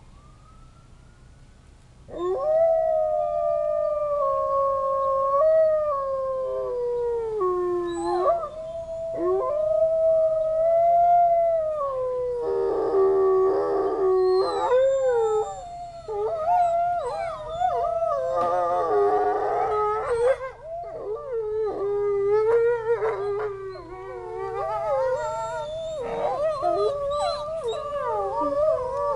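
Wolves howling, set off by sirens in the distance. About two seconds in, one long wavering howl begins. More wolves then join in an overlapping chorus, with a short stretch of quick broken notes near the middle.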